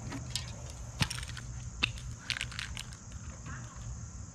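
Aerosol spray paint cans being handled: a few irregular sharp clicks and knocks, the loudest about a second in, over a steady low background hum.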